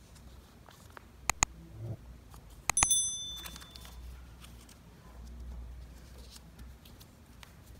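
Subscribe-button animation sound effect: a pair of mouse clicks, then two more clicks and a short, high bell ding. Faint crinkling of origami paper being folded runs underneath.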